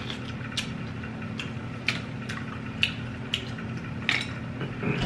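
Mussel shells clicking against each other and against plastic takeout containers as they are handled and eaten from, about ten short sharp clicks at roughly two a second.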